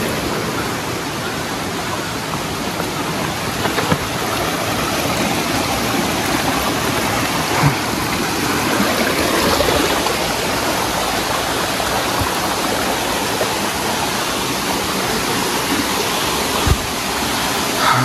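Rocky stream running over boulders and small cascades: a steady rush of water. A few brief knocks stand out along the way.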